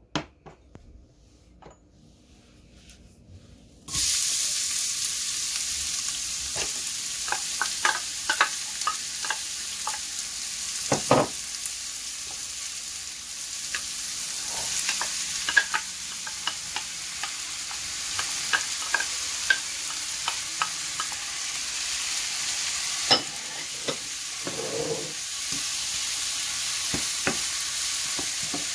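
Diced onions and peppers frying in olive oil in a non-stick wok. A steady sizzle starts suddenly about four seconds in, with frequent clicks and scrapes of a wooden spatula stirring against the pan.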